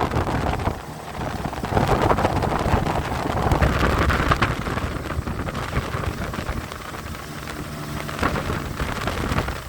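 Wind buffeting the microphone on a small boat crossing a river, over the rushing noise of the boat on the water. It is loudest in the first half and eases off in the second.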